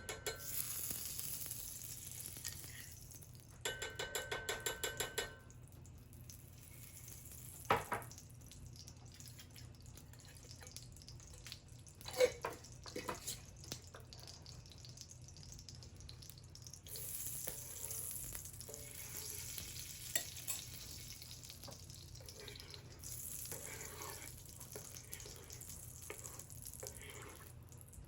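Food sizzling in a frying pan as it is stirred, the hiss coming and going. A few seconds in there is a quick run of about eight rapid taps, and a few sharp utensil knocks follow.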